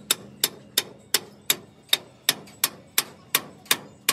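Hammer tapping on the steel of a truck's hydraulic lifting cylinder: an even run of sharp metal-on-metal strikes, about three a second.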